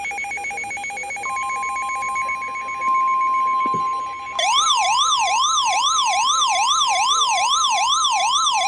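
Emergency Alert System alert tones that open a severe thunderstorm warning. A buzzy tone gives way about a second in to a steady high alarm tone. About four seconds later a loud, siren-like warbling tone takes over, sweeping up and down about two and a half times a second.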